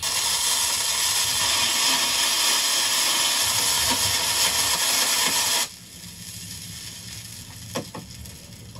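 A stick broom sweeping across a large flat iron griddle, a steady hiss that cuts off abruptly about two-thirds of the way through. After it come only a faint low hum and a few soft clicks.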